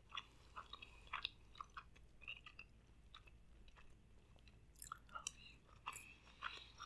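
Faint, scattered chewing and small mouth clicks from someone eating a spoonful of jasmine rice.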